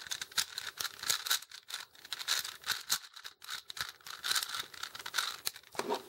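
A 4x4 Rubik's Cube's plastic layers being turned by hand: a fast, irregular run of clicks and clacks.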